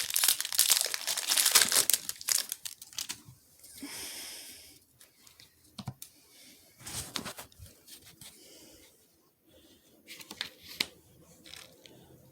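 Foil wrapper of a Magic: The Gathering booster pack being torn open and crinkled, loudest over the first three seconds, followed by softer scattered rustles and clicks.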